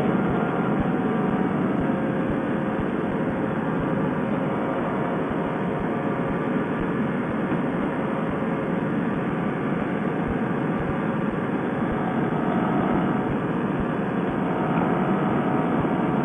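Fresh Breeze Monster paramotor's two-stroke engine and propeller running steadily at takeoff power through the ground roll and lift-off.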